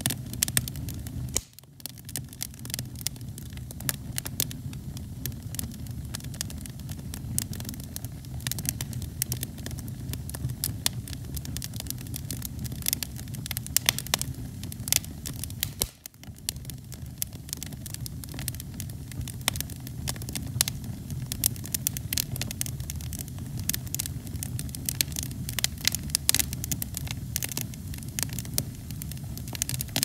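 Split logs burning in a fireplace: frequent sharp crackles and pops over a steady low rumble of flame. The sound drops out briefly twice, about a second and a half in and again near the middle.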